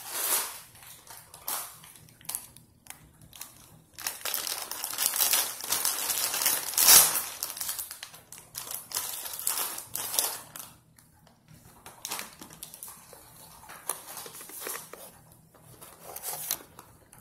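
Plastic pretzel bag crinkling and crackling as it is handled and opened, in scattered bursts at first, then a long, loud stretch of rustling in the middle, then scattered crinkles again.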